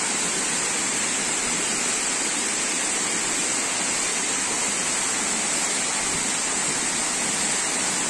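Steady rush of a waterfall falling into a pool below it, with a constant high hiss over the top.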